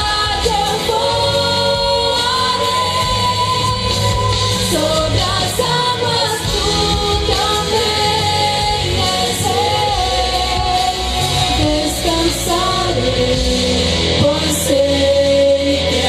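A woman singing a gospel song into a handheld microphone, amplified over instrumental backing with a steady bass line.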